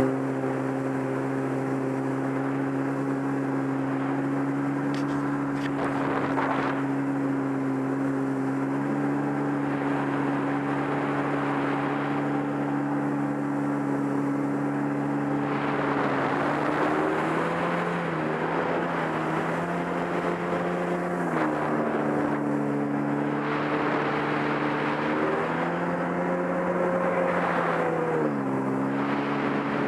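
Sea-Doo personal watercraft engine running at speed, with the hiss of water spray and wind over it. Its pitch is steady for the first half, then shifts up and down several times as the throttle changes.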